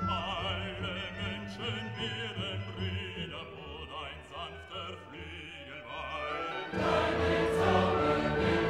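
Background classical music with an operatic singing voice, with a wide vibrato on the held notes. A little over two-thirds of the way in it swells abruptly into a louder, fuller passage with choir and orchestra.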